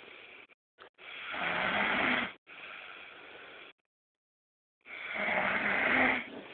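Snoring: two loud, rasping snores about three and a half seconds apart, each lasting about a second, with a softer hissing breath after the first and a pause of about a second before the second.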